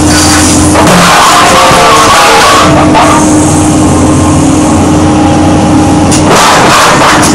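Excavator hydraulic scrap shear closing on a bundle of steel bars, with harsh metal grinding and creaking over the steady running of the excavator's engine and hydraulics. The harsh metal noise eases about three seconds in and picks up again near the end.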